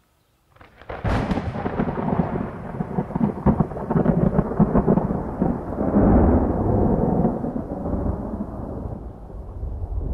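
Thunder from an approaching thunderstorm: a sharp crack about a second in, then a long rolling rumble with crackles that swells around the middle, fades near the end and starts building again.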